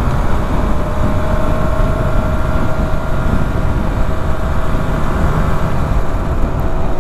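Suzuki RGV250's two-stroke V-twin running at a steady road speed during a test ride, its note fairly even throughout, with heavy wind rumble on the microphone underneath.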